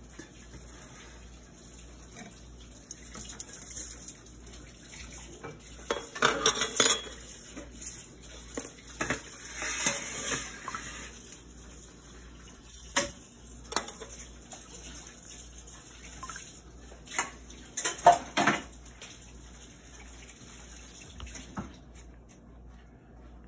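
Kitchen clatter: metal pans and utensils knocked and set down in scattered bursts, the loudest clusters about six seconds in and again near eighteen seconds, with a brief rush of noise near the middle.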